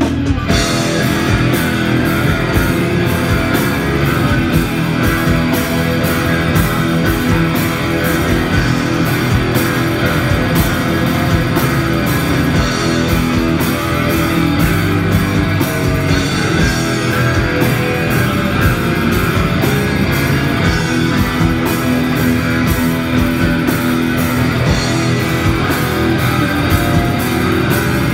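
Black metal band playing live: heavily distorted electric guitars over fast, dense drumming with cymbals. The drums and cymbals come in at the very start.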